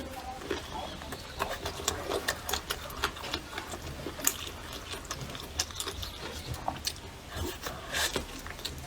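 Close-up eating sounds: irregular wet clicks, smacks and crackles of someone handling and chewing braised duck and goose.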